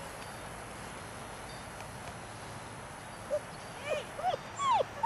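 German shepherd puppies yipping: a few short, high yelps that rise and fall in pitch, starting about three seconds in, the loudest near the end.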